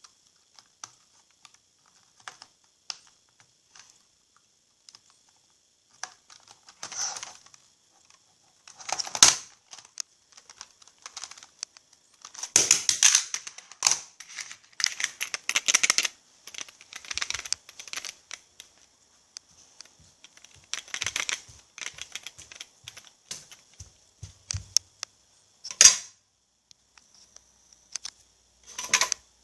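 Airsoft Desert Eagle pistol being handled: scattered small plastic and metal clicks, rattles and scrapes. A few sharper clacks stand out, the loudest about nine seconds in and another near the end, over a faint steady hiss.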